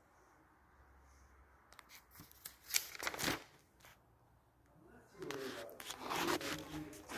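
Notebook paper rustling and the phone being handled as the pages of a spiral sketchbook are moved, with scattered scrapes and clicks; a voice talks near the end.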